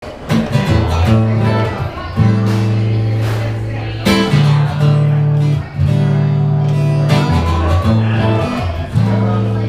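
Acoustic guitar strummed, each chord left to ring, with a new chord about every one to two seconds and the bass note changing from chord to chord.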